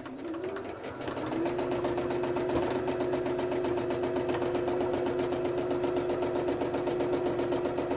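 Electric domestic sewing machine stitching a straight stitch: the motor whine rises as it speeds up over the first second or so, then holds a steady pitch with the fast, even beat of the needle.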